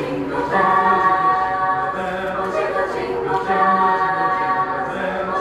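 Mixed choir of women and men singing a Christmas carol a cappella in parts, holding sustained chords that change every second or so.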